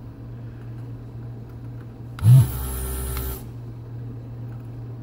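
Pace vacuum desoldering iron's pump switching on about two seconds in and sucking air and molten solder through the hollow tip for about a second. It starts with a loud knock and carries a high hiss with a low drone, over a steady low hum from the solder station.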